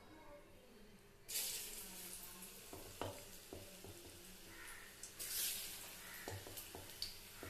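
Battered capsicum pakora pieces dropped into well-heated oil in a steel kadai, the oil sizzling. The sizzle starts suddenly about a second in, eases, and surges again about five seconds in as more pieces go in, with a few light knocks between.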